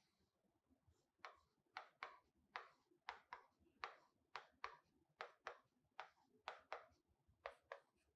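A stylus tapping on a digital whiteboard screen as letters are written: a quiet, irregular series of short sharp taps, two or three a second, starting about a second in.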